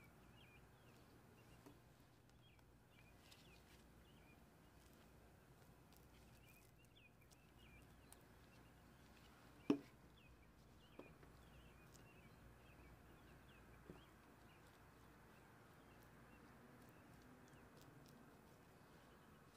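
Near silence with faint bird chirps in the background. There is one sharp knock about halfway through and a couple of fainter taps after it.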